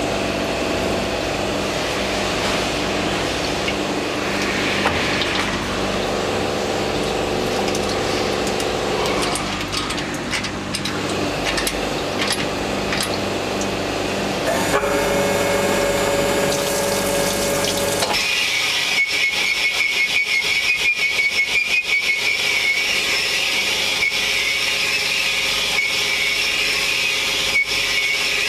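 Metal-cutting machine tool working on an engine cylinder block: a steady machine hum with held tones that shift in pitch, changing abruptly about two-thirds of the way in to a higher rasping cut with a rapid run of ticks.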